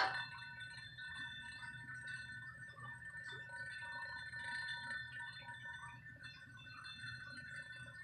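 Crystal glasses ringing by themselves: several clear, steady tones held together and swelling and fading slightly, with a short clink at the very start.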